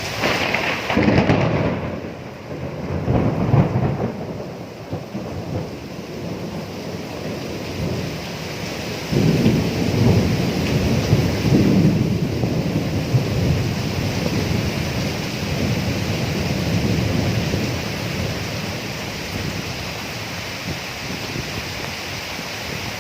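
Thunderstorm with steady rain: a thunderclap about a second in, more rumbles soon after, then a long, loud roll of thunder from about nine seconds that slowly dies away under the rain.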